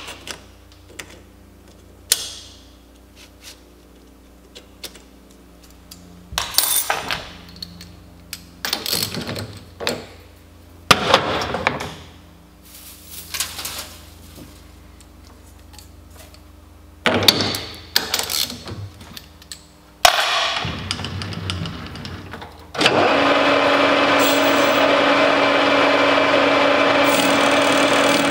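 Metal lathe: a run of metal clanks and rattles as the cap workpiece is set and clamped in the three-jaw chuck, then the machine starts and, from a few seconds before the end, runs steadily with a whine from the spindle turning the chuck.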